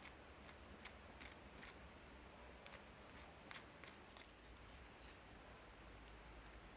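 Faint, irregular light clicks and taps, about a dozen of them, over a steady low hum.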